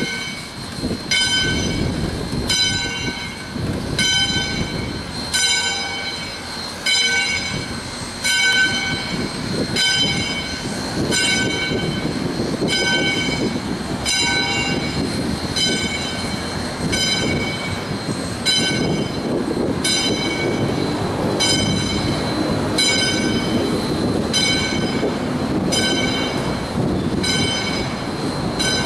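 The bell of 2-8-2 Mikado steam locomotive No. 40 ringing steadily, about one stroke a second, as the engine moves slowly. Under it runs a low rumble and hiss from the moving locomotive.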